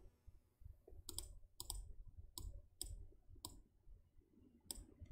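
Faint computer mouse clicks, about eight single clicks from about a second in, irregularly spaced.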